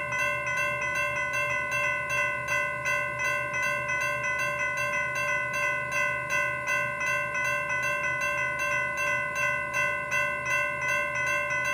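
Railroad crossing warning bell ringing in a fast, even rhythm of about two to three strikes a second, the ring carrying on between strikes.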